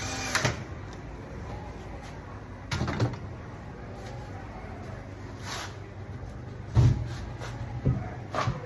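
A few scattered knocks and thumps over a steady low hum, typical of wooden cabinet panels being handled and set down during woodworking.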